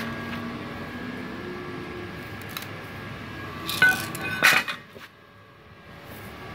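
Two short bursts of metallic clattering about four seconds in, over a steady faint machine hum.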